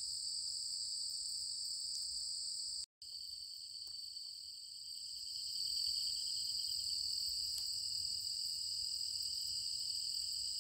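Crickets and other night insects trilling continuously, several high-pitched tones at once. The sound drops out for a moment about three seconds in, then resumes with an extra, lower-pitched pulsing trill joining in.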